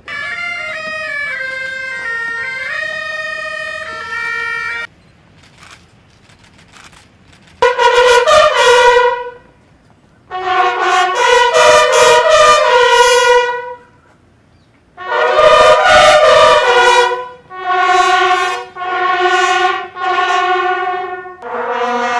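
Military brass music played as a salute. A softer sustained passage of several moving notes runs for about five seconds and breaks off. After a short pause, a series of loud brass phrases follows, each a second or two long, separated by brief gaps.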